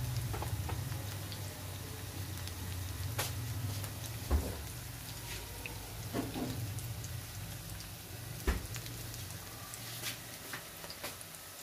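Breadcrumb-coated bread balls shallow-frying in oil in a pan: a soft sizzle with scattered sharp pops and crackles every second or two, over a low steady rumble that slowly fades.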